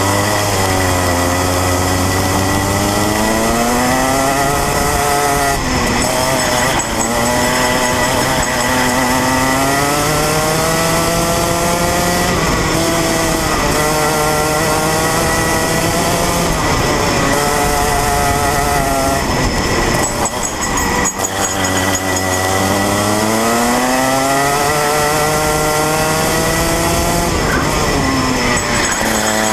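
Rotax Mini Max 125cc two-stroke kart engine at racing speed, heard from on board the kart. Its pitch climbs steadily on each straight and drops away when the driver lifts for a corner, several times over.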